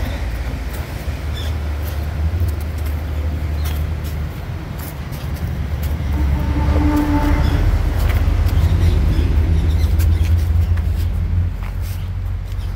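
A motor vehicle passing, loudest a little past the middle with a brief engine tone, over a steady low rumble. Light ticks of footsteps on concrete steps sound through it.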